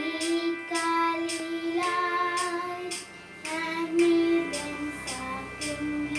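A child singing a prayer song over instrumental backing with a steady beat.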